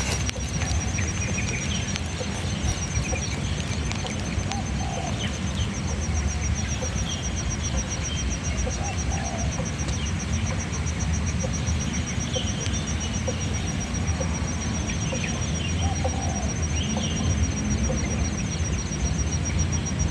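Steady wind rumble on the microphone, with scattered bird calls over it, including short low coos. A faint, fast, high pulsing buzz runs underneath.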